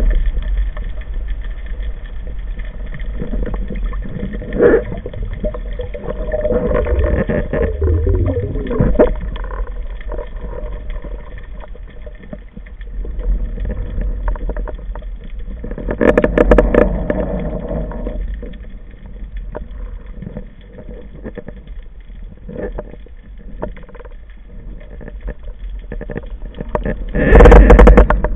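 Underwater noise from a camera in a waterproof housing during a freedive: a steady low rumble of water moving over the housing, with scattered clicks and a louder rushing spell about sixteen seconds in and another near the end.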